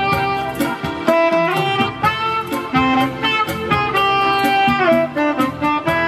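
Live saxophone playing a melody of long held notes, some sliding between pitches, over a keyboard-style backing accompaniment.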